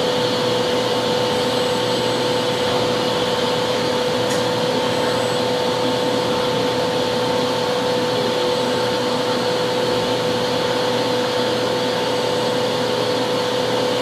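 Steady hum of an idle Milltronics CNC milling machine: an even mechanical whir with a steady mid-pitched whine.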